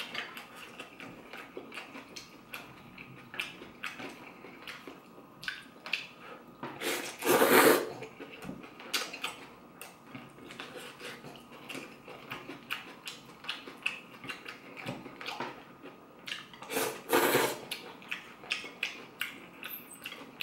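Eating a bowl of pho: wooden chopsticks and a metal spoon clicking and scraping against a ceramic bowl, with two loud slurps of noodles and broth, one about a third of the way in and one near the end.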